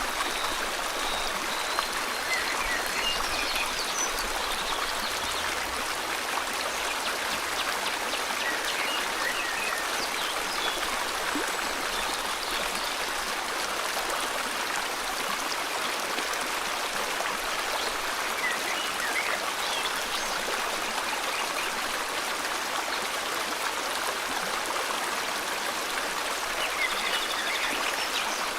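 River water flowing steadily, with a few faint bird chirps now and then.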